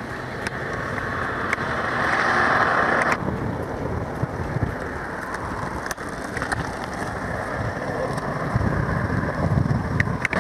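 Steady rush of wind on a camcorder microphone moving along a road, mixed with road rumble, swelling briefly a couple of seconds in, with a few faint clicks.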